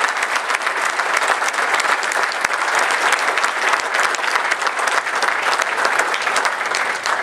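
Audience applauding, a dense, steady spatter of many hands clapping that dies away at the very end.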